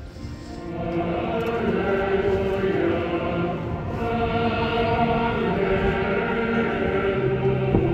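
Choir chanting in sustained notes, swelling louder about a second in.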